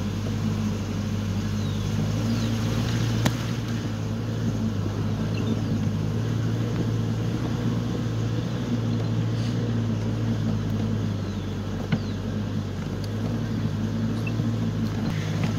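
Vehicle engine running with a steady low hum while driving slowly along a rough dirt road, with a sharp knock about three seconds in and another about twelve seconds in.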